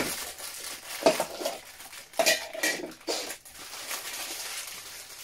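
Sealed black plastic figure bags from Funko Soda cans crinkling and rustling as they are handled and torn open, in several short bursts. There is a sharp click right at the start.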